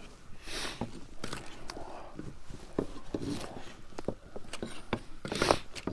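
Food and tableware being handled at an outdoor table: scattered light clicks and knocks, with brief rustles about half a second in and again near the end.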